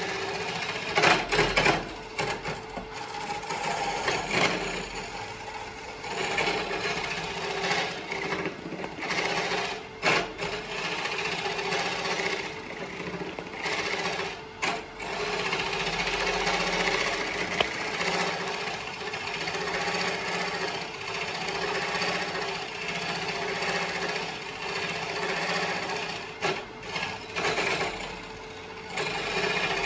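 Turning tool cutting the inside of an oak burl bowl spinning on a wood lathe: a rough, uneven rasping cut over the lathe's steady motor hum. The cut comes and goes in stretches, with brief dips where the tool eases off.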